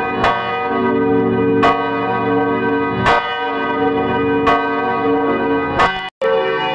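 Church bells ringing, a new stroke about every second and a half, each ringing on under the next. Near the end the sound cuts out for a split second and a different-pitched peal picks up.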